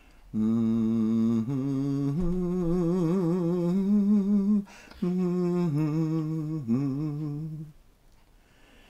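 A man's voice humming a slow, wordless melody of long held notes with vibrato, in two phrases with a short break about five seconds in. It stops about a second before the end.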